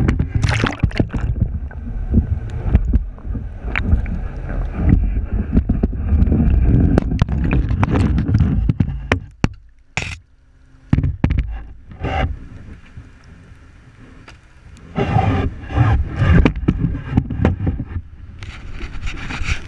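Sea water rushing and sloshing over a GoPro's waterproof housing as it moves through the water, with scattered sharp knocks against the housing. It drops quieter for a few seconds midway, then rushes loudly again near the end.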